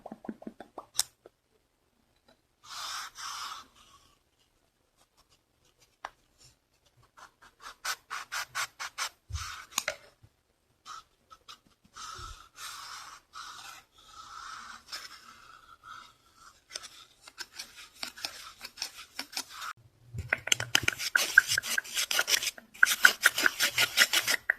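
Close-up scratching and rubbing on a surface, in separate bursts. Rapid strokes come about eight seconds in, longer rubbing follows, and fast, louder scratching comes in the last few seconds.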